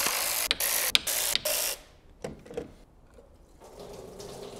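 A power tool spinning out a bolt at the front of a BMW M70 V12 in four quick bursts, followed by a few light clicks.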